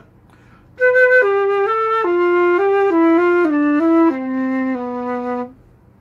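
Silver concert flute playing a stepwise descending phrase of about eleven notes down into its lowest register, ending on a held low note. It is played with the mouth space and throat opened wide, the way to get low notes without a throat noise.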